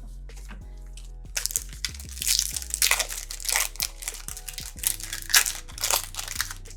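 A foil trading-card pack wrapper being torn open and crinkled: a run of loud crackling rustles starting about a second and a half in, over quiet background music.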